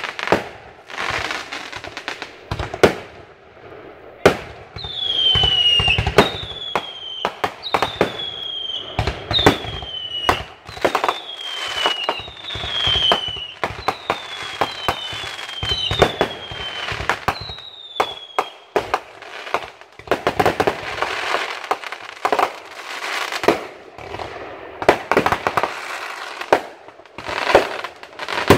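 Aerial fireworks going off in a quick barrage of sharp bangs and crackling bursts. Partway through comes a run of about ten whistles, each falling in pitch, one after another, over roughly fifteen seconds.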